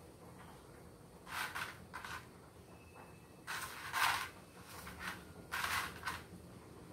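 Cardboard-tube treat-dispensing toy pawed and pushed about on a tiled floor by a cat, scraping on the tiles in four short bursts, the loudest about four seconds in.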